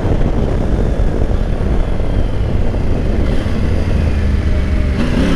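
Heavy wind rush on the microphone from a Triumph Tiger 900 three-cylinder motorcycle slowing from about 100 km/h while shifting down from fifth to second, with the engine running under the wind. Near the end the wind eases and a steady engine tone comes through.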